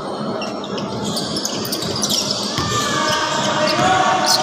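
A basketball being dribbled on the court during a game, amid a steady din from the gym's players and onlookers, with some faint pitched squeaks or calls in the second half.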